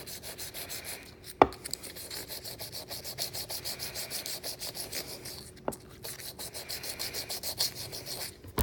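Wet-and-dry paper rubbed back and forth in quick, even strokes against a hardened 440C stainless steel juicer cutter, scouring off tannin build-up. The strokes pause briefly twice, and a sharp knock sounds about a second and a half in.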